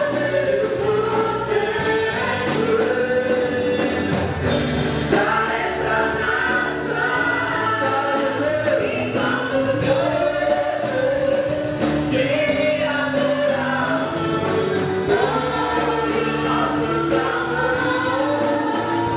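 Gospel worship song: a choir singing with instrumental backing.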